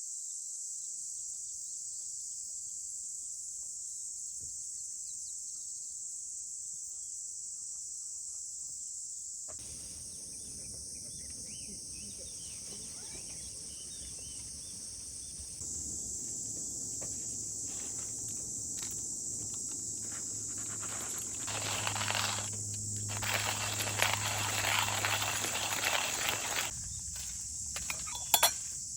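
Steady high-pitched chirring of crickets and other insects. A louder spell of rustling noise with a low hum comes in past the middle, and two sharp clicks sound near the end.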